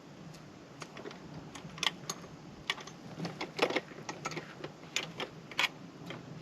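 Irregular light clicks and knocks of metal hardware being handled while a trailer tongue jack is swapped in its mount, about a dozen in all.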